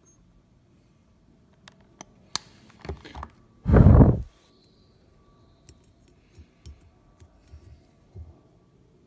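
Scattered clicks and small knocks of tools and wire being handled at a workbench, with one loud, short burst of noise about four seconds in.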